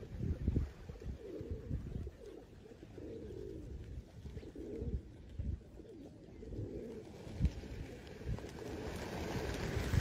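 A flock of pigeons cooing, many short low coos overlapping one after another, with wind gusting on the microphone. Near the end a rising rush of many wingbeats as the flock takes off together.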